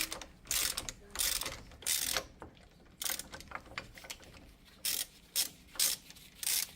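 Ratchet wrench clicking in short bursts, stroke after stroke, as it turns a bearing puller that is drawing a seized steel hub bearing out of an aluminum steering knuckle.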